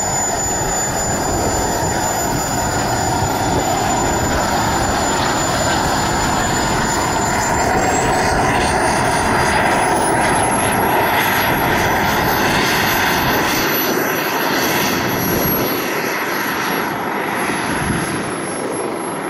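Small kerosene-fuelled turbine engine of a radio-controlled model jet running just after start-up: a high steady whine over a broad rush of noise, rising in pitch about eight seconds in as it spools up, then holding at the higher pitch.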